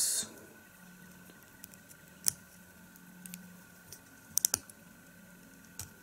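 Plastic LEGO bricks clicking as they are handled and pressed together: scattered sharp clicks, a single loud one a little after two seconds and a quick run of three about four and a half seconds in.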